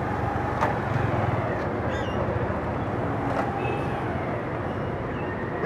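Outdoor background noise: a steady low rumble with a few short chirps and faint clicks over it.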